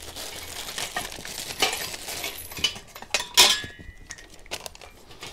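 Metal parts of a flat-pack folding workbench kit clinking and knocking together as they are handled, with one louder metallic clank about three and a half seconds in that rings briefly.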